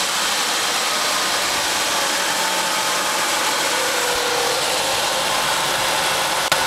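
Dodge Intrepid's 2.7-litre DOHC V6 running at a steady level, a dense mechanical noise from an engine with a knock in the cylinder head that shows above 2000 rpm. One sharp click near the end.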